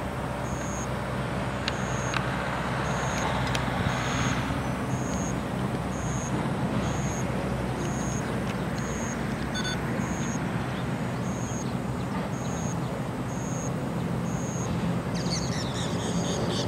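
Steady low rumble of distant vehicles, with a faint high-pitched pulse repeating about twice a second. A busier high-pitched sound comes in near the end.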